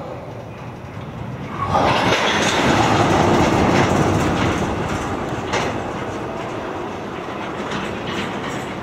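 Freight train's tank cars and covered hopper cars rolling past slowly, the wheels rumbling and clacking over rail joints. The sound jumps sharply louder a little under two seconds in, then slowly eases, with a few sharp clacks later on.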